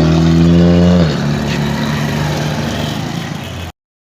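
Car engine held at raised revs, then dropping back about a second in and running on more quietly, until the sound cuts off suddenly near the end.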